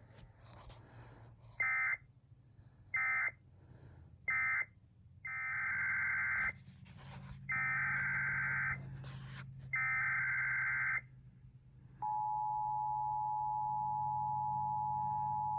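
Emergency Alert System SAME data bursts: three short end-of-message bursts of warbling digital tones, then three longer header bursts that encode the coming tornado warning. About twelve seconds in, the steady two-tone EAS attention signal starts.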